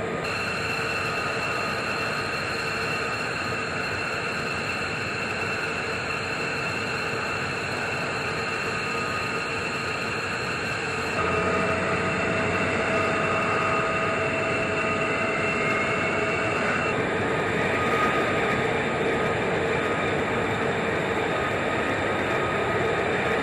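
F-35A Lightning II jet engines running at idle on the flight line: a steady turbine whine with several high held tones over a rush of air. The mix changes abruptly twice, growing louder about eleven seconds in.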